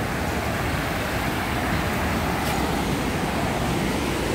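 River rapids rushing close by: a steady, even noise of whitewater running over rocks.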